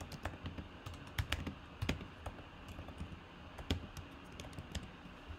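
Typing on a computer keyboard: irregular key clicks with a few louder taps among them, thinning out near the end.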